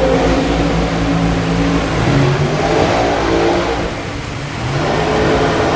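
A vehicle engine running and revving, its pitch rising about two seconds in and again near the end.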